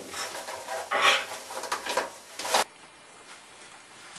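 A man's breathy grunts and straining noises in a small room. They come in two main bursts and stop abruptly at a cut about two and a half seconds in, leaving quiet room tone.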